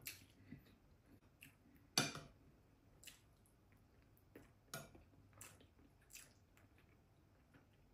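Quiet eating sounds: a metal spoon scraping and tapping a ceramic bowl of curry and rice, with soft chewing and mouth smacks. About half a dozen short, sharp clicks spread through, the strongest about two seconds in.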